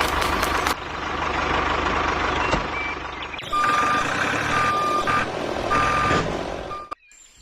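A vehicle's reversing alarm beeps in a steady tone about once a second over a rumbling engine noise, starting about halfway through. The sound cuts off abruptly near the end.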